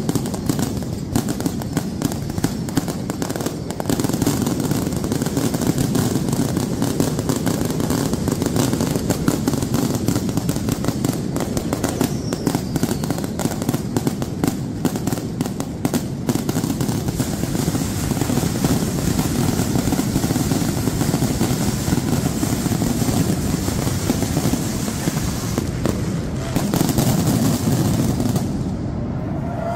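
A dense, continuous barrage of fireworks and firecrackers: rapid crackling bangs packed one on another over a steady low rumble. The high crackle drops away shortly before the end.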